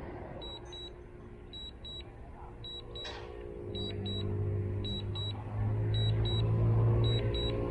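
DJI RC-N1 remote controller beeping in short pairs about once a second, its alert while the drone flies a low-battery return to home. A low steady hum comes in about halfway through and grows louder.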